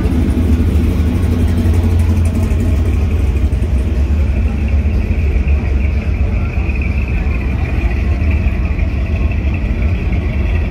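Engine of a lifted 1970s square-body pickup truck running as it drives slowly past, a steady low rumble with no big revs.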